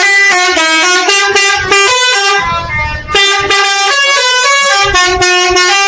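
Indonesian 'telolet' bus horn playing a quick tune of stepped notes, loud, with a short break about two and a half seconds in.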